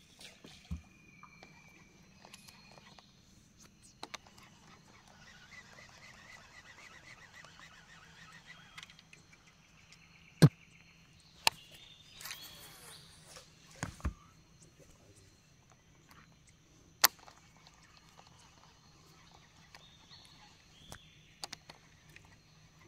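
Scattered sharp clicks and knocks, the loudest about ten seconds in, over a faint steady hum, with a soft rapid chirping from about five to nine seconds in.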